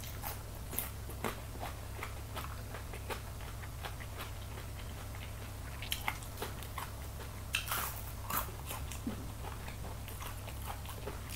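Close-up chewing and crunching of raw radish and crispy baked chicken wing, a steady run of irregular crackles. The loudest crunches come about six and eight seconds in.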